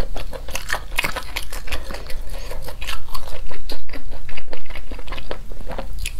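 Close-miked chewing and biting: a rapid, irregular run of small wet clicks and crunches as a mouthful of crispy-skin sausage is eaten.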